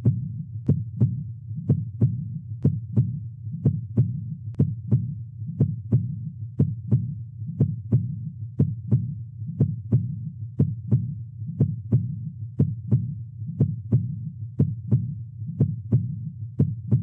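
Heart sounds at 60 beats per minute: a lub-dub pair about once a second over a steady low rumble. The first sound (S1) is the mitral valve closing at the start of systole, and the second (S2), about a third of a second later, is the aortic valve closing at the start of diastole.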